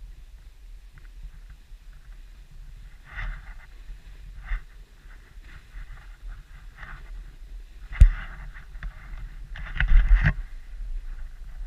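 Sliding down a snowy trail with a steady low rumble of wind on the camera microphone, broken by short bursts of edges scraping the snow. There is a sharp knock about eight seconds in and a cluster of scraping near the ten-second mark.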